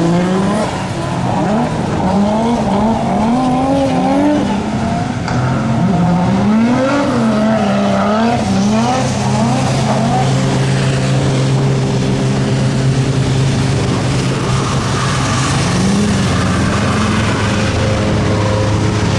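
Car engine revving up and down repeatedly, its pitch rising and falling several times, then settling into a steady note about halfway through, with one more brief rise later.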